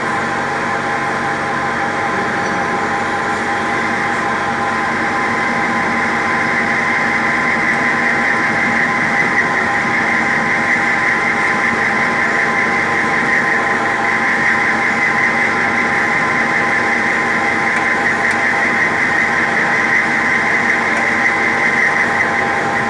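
Metal-turning lathe running steadily with its three-jaw chuck spinning a bar, a steady whine of several held tones, as the tool is fed across the end of the bar in a facing cut. The high part of the whine grows a little louder over the first half.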